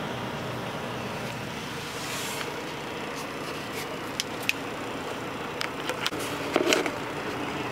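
Steady hum inside a semi-truck's sleeper cab, with a few scattered light clicks and knocks in the second half.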